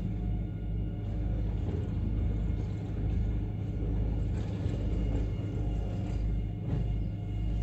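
Rear-loading compactor garbage truck's engine running steadily, a low rumble, with a couple of faint knocks as plastic wheelie bins are handled at the back and hooked onto the bin lifter.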